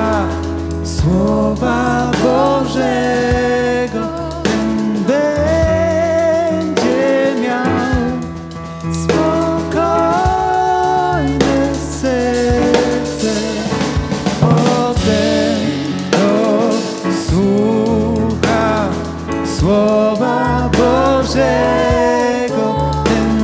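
Live Christian worship song: a singer's voice carrying long, sustained melody lines over a band accompaniment with held low bass notes.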